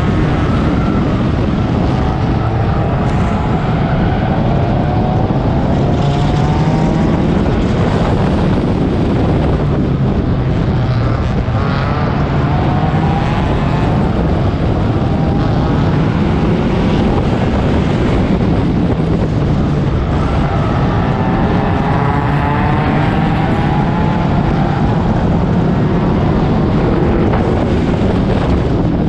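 Four-cylinder race car engine heard from an onboard camera, running hard and revving up and easing off again and again through the laps.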